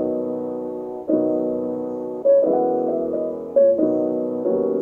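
Background music on piano: slow chords struck about once a second, each ringing and fading away before the next.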